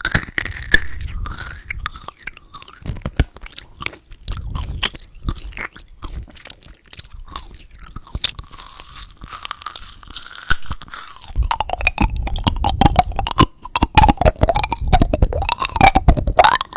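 Close-miked crunching and chewing of candy in the mouth, with sharp crackles throughout. From about eleven seconds in the chewing gets denser and louder.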